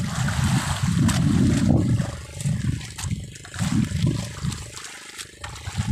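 Wind buffeting the phone's microphone in irregular low gusts over a hiss of sea water, strongest in the first two seconds and easing off toward the end.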